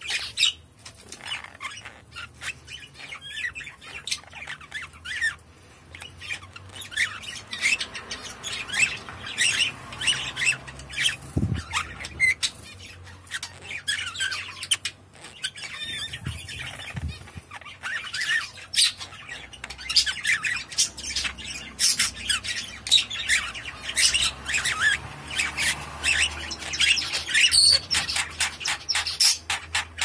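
Female budgerigar chattering close up: a rapid run of chirps, clicks and short squawks, with a couple of brief lulls.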